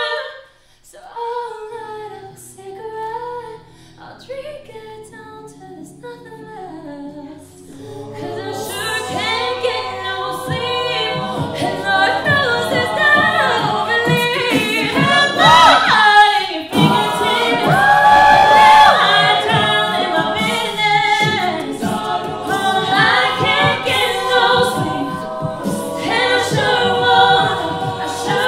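Mixed-voice a cappella group singing: a soft single melodic line over low held chords, swelling about eight seconds in into the full group with two female lead voices on top.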